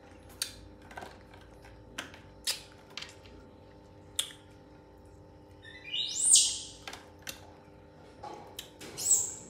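A baby monkey's high-pitched squeal that sweeps upward about six seconds in, then a shorter high squeak near the end, among a scatter of small clicks and taps from fruit being handled.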